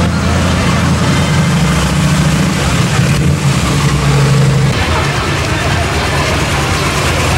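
Engines of custom cars and hot rods driving slowly past: a deep, steady exhaust rumble, with crowd voices behind it.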